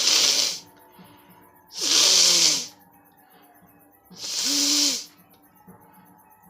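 A person blowing their nose hard, three blows about two seconds apart, each a rushing burst of air lasting about a second. The first is already ending as the sound begins, and the last two carry a honking tone.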